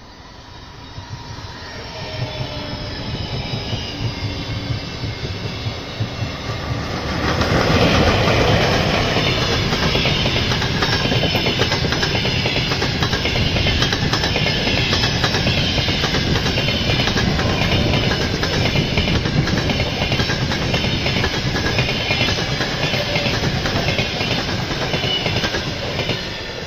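Express passenger train hauled by a ChS6 electric locomotive passing at speed: it grows louder on approach, then passes with a loud rush about seven seconds in. This is followed by a steady, rhythmic clickety-clack of the coaches' wheels over rail joints. A Lastochka electric train passes on the neighbouring track at the same time.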